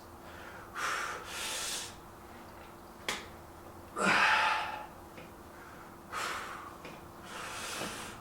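A man breathing forcefully in sharp huffs, straining through repetitions of a weightlifting set. The breaths come in pairs about every three seconds, loudest about four seconds in. There is a single sharp click about three seconds in.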